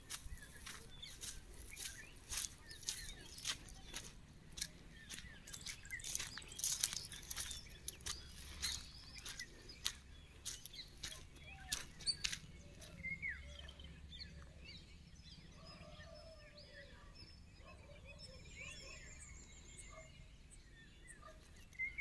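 Outdoor ambience with birds chirping and calling. A run of sharp clicks and crackles fills the first half, then thins out, leaving the bird calls clearer in the second half.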